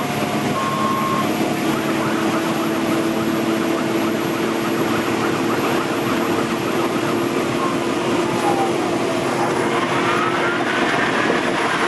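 Fire engine's engine and road noise heard from inside the cab while driving at speed, with a steady drone throughout. In the second half a siren wails, slowly falling, then rising and falling again.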